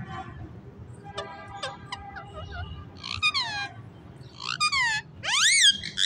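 Rose-ringed (Indian ringneck) parakeet calling: soft chatter about a second in, then a few loud screeching calls that swoop up and down in pitch, the loudest near the end.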